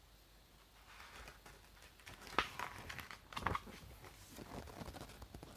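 Paper rustling and crinkling as a printed booklet is handled, with two sharper crackles about two and a half and three and a half seconds in.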